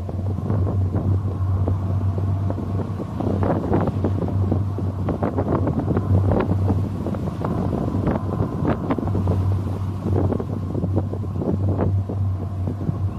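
A steady low rumble with wind buffeting the microphone and many irregular small knocks and rattles.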